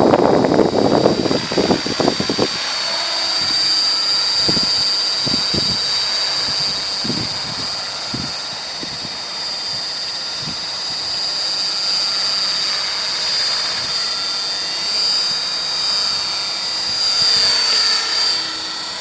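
Electric Belt-CP radio-controlled helicopter with wooden rotor blades in flight, its motor and rotor giving a steady high whine that grows louder near the end as it comes in close. Wind buffets the microphone heavily for the first couple of seconds, with a few lighter gusts later.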